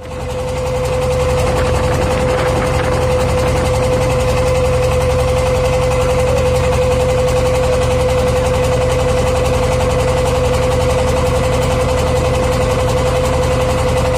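A boat's engine running steadily, heard from inside the wooden cabin, with a constant humming tone over a low drone. The sound fades in during the first second.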